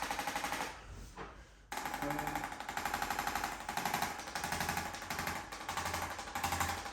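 Electric chiropractic percussion or vibration device running, a fast mechanical rattle of rapid, evenly spaced strikes with a steady motor tone. It drops briefly about a second in and resumes sharply just before the two-second mark.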